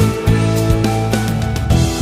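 Instrumental background music with plucked guitar notes.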